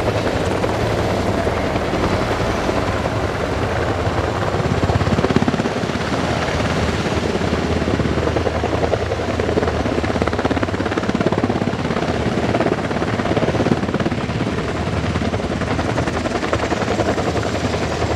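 Military helicopter's rotor chop over a low engine drone, steady and unbroken.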